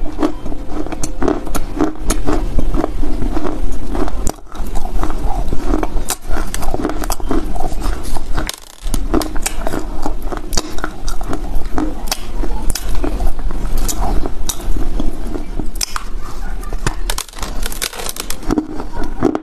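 Close-miked biting and chewing of a lump of baked Chinese loess clay: dense, crisp crunches and crackles as chunks break off and are ground between the teeth, with two short pauses about 4 and 9 seconds in.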